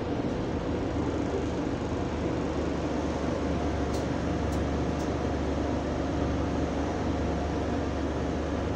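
A bus's electric cooling fan running at one steady pitch, not following the engine's revs, over the bus's low engine and road rumble. A few faint ticks come about four to five seconds in.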